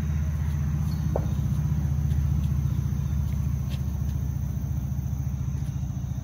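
A low, steady engine rumble with a fast pulse that swells slightly and then eases off.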